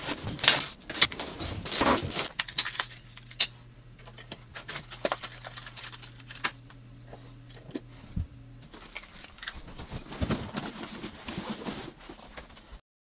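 Hard plastic fishing lures with metal treble hooks clattering and jangling as they are picked out of a pile on a wooden table and set into a plastic tackle case. The rattling is busiest in the first couple of seconds and again near the end, with a faint low hum in between, and it cuts off suddenly just before the end.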